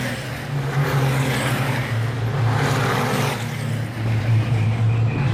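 Racing trucks' diesel engines droning as they run along the track. The low drone drops in pitch about two seconds in, and the engine noise swells twice as trucks go by.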